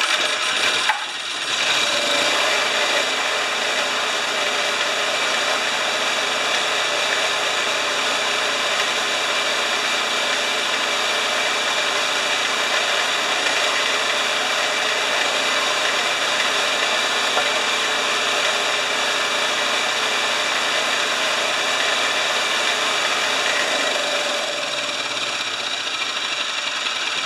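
Homelite 3000-watt generator engine catching about a second in and then running loud and steady. Near the end its speed sags slightly.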